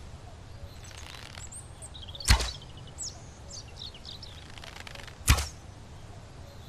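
Two shots from a bow, about three seconds apart, each a sharp snap with a short tail. Birds chirp faintly in between.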